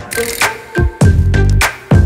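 Background music with a strong, regular bass beat.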